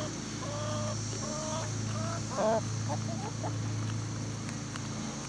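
Hens clucking while they feed on flaxseed, a string of short calls one after another.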